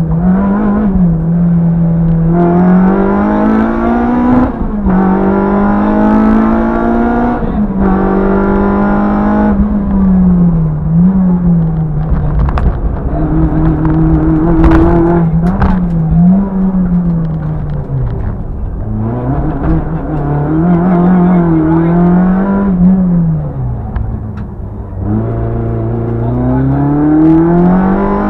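Peugeot 106 GTi's 1.6-litre 16-valve four-cylinder engine heard from inside the cabin, revving hard through the gears: the pitch climbs and drops back at each upshift, then rises and falls repeatedly through the turns, with a long climb near the end.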